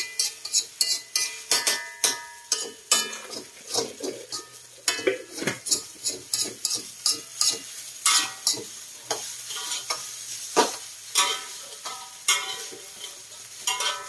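A metal spatula scraping and clanking against a steel wok as instant noodles are stir-fried, over a steady frying sizzle. The strokes come irregularly, about two or three a second, some ringing briefly.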